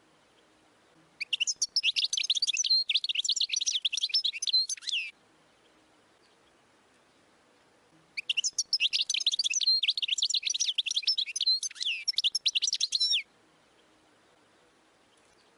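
European goldfinch singing: two bouts of rapid, varied twittering song, each about four seconds long. The first starts about a second in, the second about halfway through.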